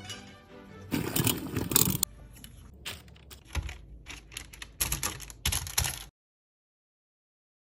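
Kitchen food-preparation handling sounds: a scraping, crunching burst about a second in, then a run of separate quick taps and clicks, cutting off to silence near the end.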